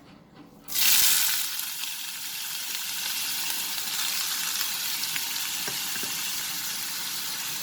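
Chopped onions tipped into hot oil: a sudden loud sizzle just under a second in that settles into a steady frying sizzle.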